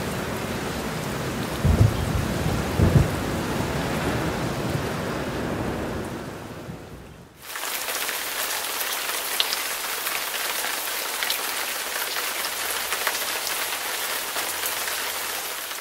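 Heavy rain pouring down, with two short low rumbles about two and three seconds in. About halfway through it fades and gives way to a different, thinner steady hiss of water with faint ticks.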